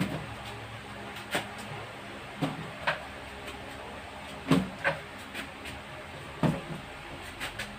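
A plastic shelf rack standing in for a walker, lifted forward and set down again on a tiled floor: a series of irregular knocks and clatters, the loudest about halfway through and again near the end.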